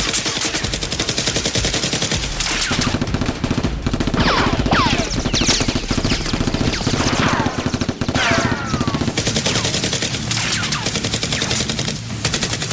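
Rapid automatic gunfire: a continuous, fast rattle of shots. Several falling whistles cut through it around the middle.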